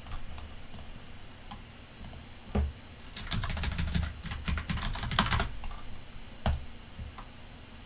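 Typing on a computer keyboard: scattered single keystrokes, with a quick run of keys in the middle.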